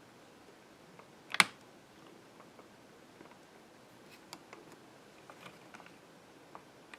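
Small handling noises: one sharp click about a second and a half in, then scattered light ticks and clicks over a quiet room.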